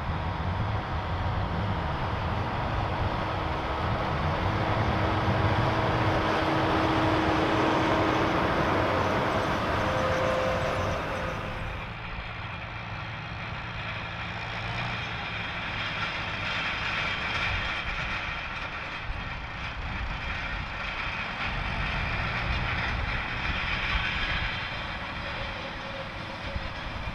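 Tractor diesel engine working under load, a John Deere 7430 pulling a seed drill, running steadily with a held tone that rises slightly around ten seconds in. About twelve seconds in the sound changes suddenly to quieter tractor engine noise with a high hiss.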